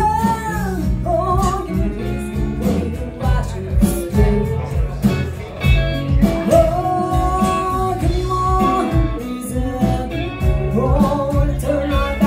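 Live band playing a song: a woman singing lead over electric and acoustic guitars.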